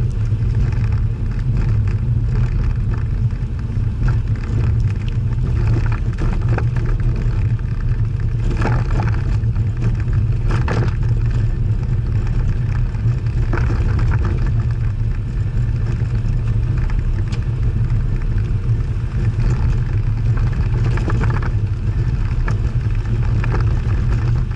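Jaguar E-type engine running steadily while the car is driven along a country road, heard from inside the car together with road noise.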